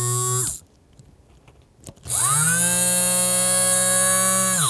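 Small Johnson DC motor from an electric screwdriver, run bare on a 6-volt supply: a steady whine that stops about half a second in. It starts again about two seconds in, rising quickly in pitch as it spins up, runs steadily and stops near the end. It sounds great, showing that the motor is sound and that corrosion was all that stopped the screwdriver working.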